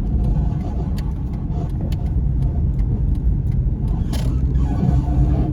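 Car running, heard from inside the cabin: a steady low engine and road rumble.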